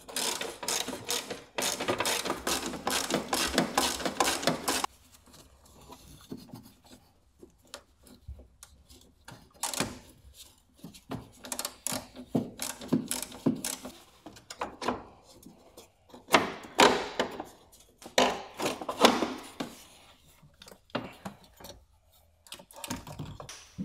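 Ratchet wrench clicking rapidly as 10 mm nuts are undone, in two long runs over the first five seconds. Scattered clicks, knocks and rubbing follow as tools and parts are handled.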